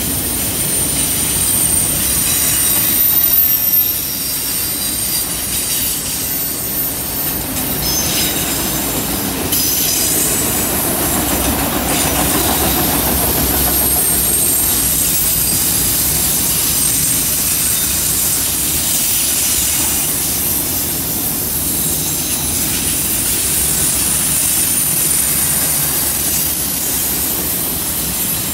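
Freight train's autorack cars rolling past on a curve: a steady rumble and clatter of wheels on rail, with high, thin wheel squeal from the curve.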